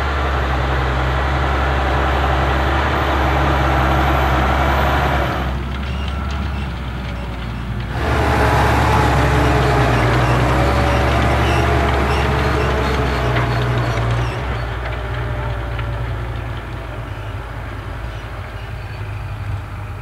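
Massey Ferguson 7715 Dyna VT tractor's six-cylinder diesel running steadily under load while pulling a five-furrow reversible plough, with the rushing and crumbling of soil turned over by the plough bodies. The sound dulls for a couple of seconds about six seconds in and grows quieter after about fourteen seconds.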